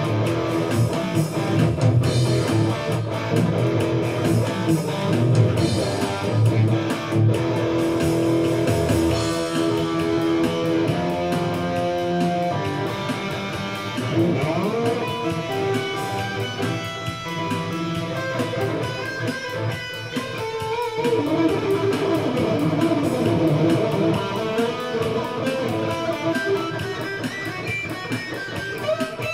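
Electric guitar jamming: full, heavy playing with a strong low end for the first nine seconds or so, then lighter single-note lines with bends and slides.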